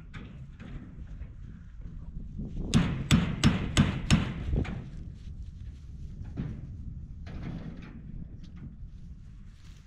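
A hammer striking the wooden frame of a rabbit tractor: about six quick blows, roughly three a second, a few seconds in.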